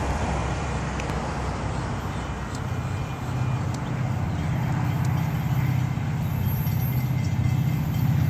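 Diesel locomotives of an approaching Florida East Coast Railway freight train: a low, steady engine rumble that grows louder from about three seconds in as the train nears.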